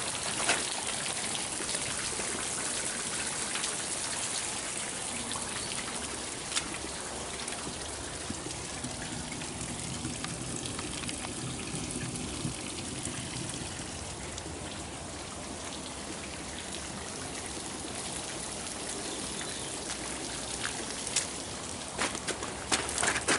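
Water trickling and dripping steadily over mossy rock, with a few sharp drip-like clicks. Near the end, footsteps on dry ground break in.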